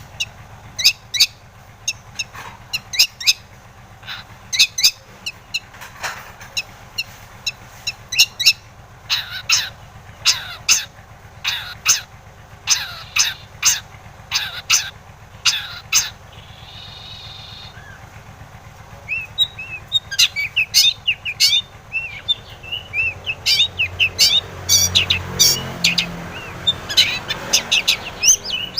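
Long-tailed shrike singing in series of sharp, harsh chattering notes with uneven pauses, and one short buzzy note about two-thirds of the way through. The chatter becomes denser and faster near the end.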